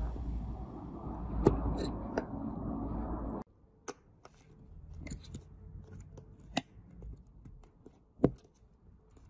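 Sharp plastic clicks and taps as fingers press small parts into an opened smartphone's housing, the loudest near the middle and near the end. For the first few seconds a steady low rumble runs underneath and cuts off suddenly.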